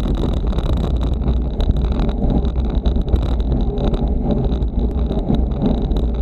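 Wind buffeting the microphone of a bicycle-mounted camera while riding at race speed, a steady deep rumble mixed with road and tyre noise.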